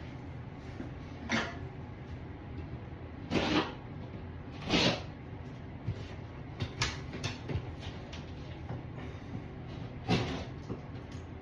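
A handful of short scrapes and knocks, about five louder ones a second or two apart with small clicks between, as of things being handled and moved about.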